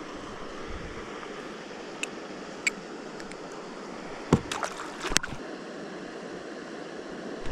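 Water lapping gently around a small fishing boat, with a few sharp clicks and knocks. The loudest knock comes about four seconds in, with a quick run of clicks just after it.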